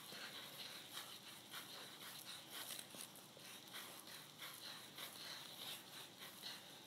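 Faint, soft rustling of yarn being wound round and round a small cardboard piece, irregular light scratches over a steady faint hiss.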